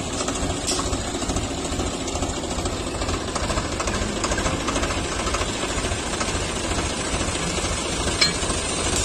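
Swaraj 735 FE tractor's diesel engine running steadily with a fast, even clatter. One sharp click near the end.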